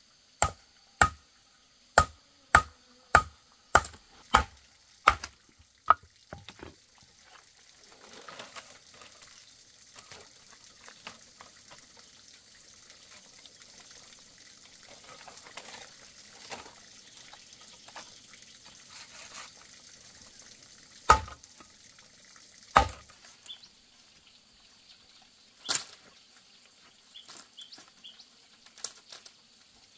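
A machete chopping into a green bamboo pole laid on a wooden log: a quick run of about nine sharp strikes, roughly one every half second, as the culm is split open into flat strips. Then the split bamboo is handled with rustling and scraping, and there are two more heavy strikes and a later single one.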